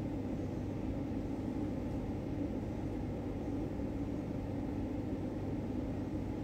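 Steady low hum of background noise, even throughout, with no distinct events.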